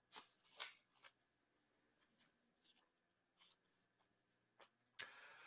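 Faint, scattered scratching and rustling: a few short, separate strokes over near silence.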